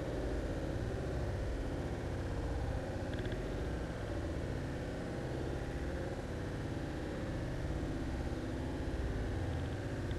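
A steady low rumbling noise that holds an even level throughout.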